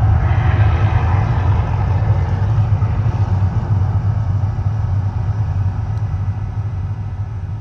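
Deep rumble from the Mirage volcano show's effects, steady and loud at first, then slowly fading.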